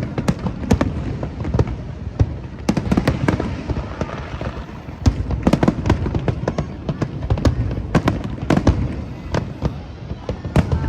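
A fireworks display: many loud shell bursts and crackling reports in quick, irregular succession over a continuous low rumble.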